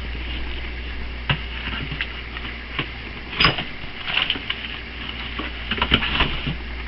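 Freezer baskets and frozen food packages being handled and set into a chest freezer: scattered knocks, clunks and rustling, loudest about halfway through and again near the end, over a steady low hum.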